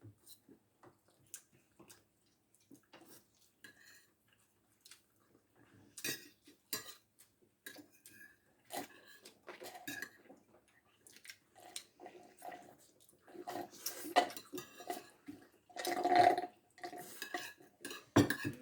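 Cutlery and dishes clinking and tapping during a meal: scattered short clicks, sparse at first and busier and louder in the second half.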